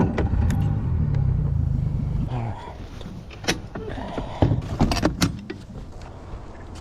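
Boat motor running with a low rumble for about two seconds, then dropping away, followed by a few sharp knocks and clatters on the boat.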